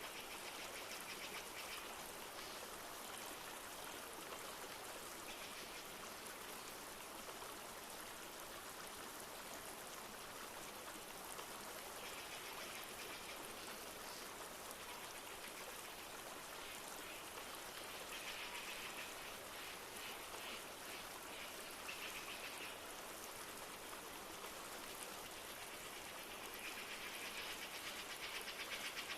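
Steady rushing of a flowing stream with light rain, and short high trilling animal calls coming and going every few seconds.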